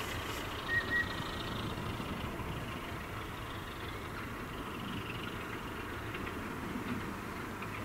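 Railway locomotive running with a steady low rumble and an even noisy hiss. A brief high double chirp comes about a second in.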